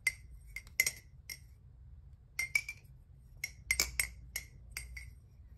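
Aluminium balisong (butterfly knife) being handled and flipped: its handles and pivots give a string of sharp metallic clicks and clinks in small irregular clusters, about fifteen in all.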